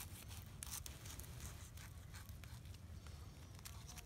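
Knife slicing into a campfire-roasted, glazed ham: a few short scraping cuts through the crust, over a steady low background rumble.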